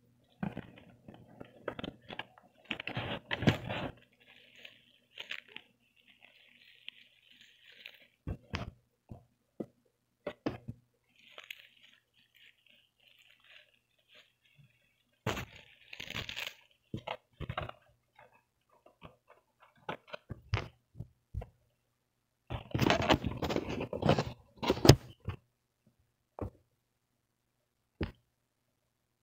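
Hands unpacking a microphone: plastic bag and packing crinkling and rustling, with taps and knocks against the cardboard box, in irregular bursts. The loudest flurries of crinkling come about three seconds in and again about twenty-three seconds in.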